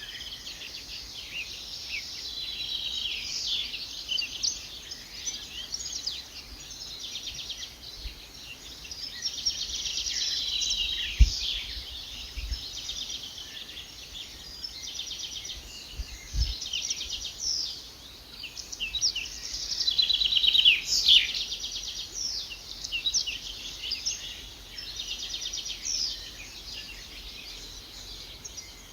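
Several birds singing, a dense run of rapid trills and chirps. Two brief low thumps, about 11 and 16 seconds in.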